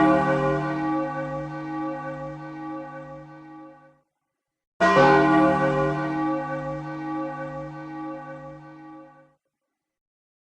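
A deep bell tolling. One stroke rings and slowly fades, then a second stroke about five seconds in rings and fades the same way.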